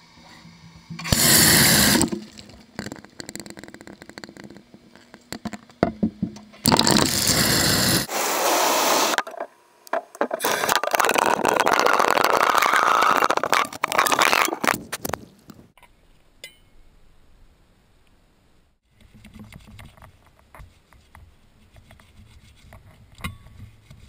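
Loud rushing and splashing of water into a container, in three long bursts, while warm soapy water is made up for cleaning. Quieter scrubbing and rubbing follows in the last few seconds.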